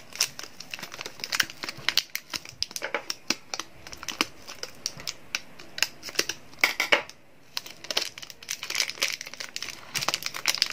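Clear plastic wrapper on a bar of soap crinkling and crackling in the hands as it is cut open with scissors and peeled away. The crackles are irregular, with a brief lull a little after the middle.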